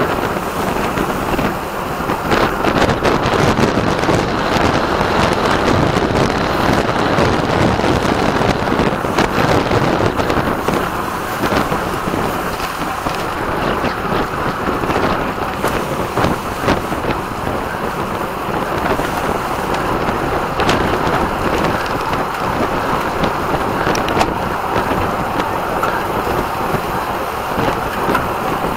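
Steady, loud wind noise buffeting the microphone of a camera carried on a road bike at race speed.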